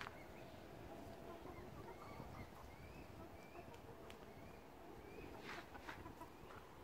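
Faint, short bird chirps repeating every second or so, with a few sharp clicks or taps about four and five and a half seconds in, over a low outdoor rumble.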